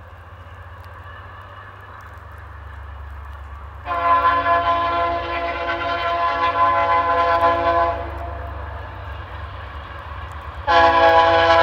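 Nathan K3L three-chime air horn on a VIA Rail F40 diesel locomotive sounding two long blasts. The first starts about four seconds in and lasts about four seconds. The second, louder one starts near the end. Under both, a low, steady rumble of the approaching train grows louder.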